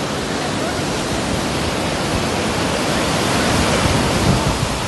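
Heavy surf from a rough sea swollen by a low-pressure system: breaking waves washing up the beach as a steady rush of noise, a little louder about four seconds in.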